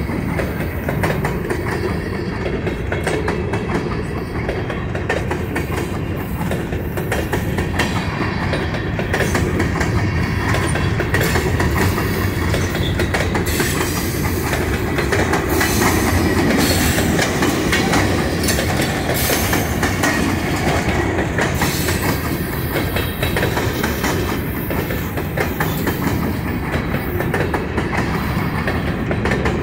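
A train's railroad cars rolling past, wheels clicking steadily over the rail joints with a continuous rumble.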